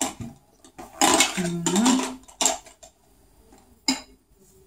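Plastic toy dishes and play food clattering as they are handled and set down, with a few separate knocks, the last a little before the end. A short voice sound comes about a second in.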